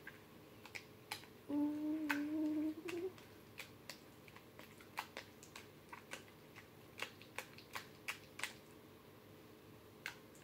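Homemade slime being squeezed and pulled apart in the hands, giving off irregular sharp clicks and pops, about two a second. A short hummed note sounds about a second and a half in.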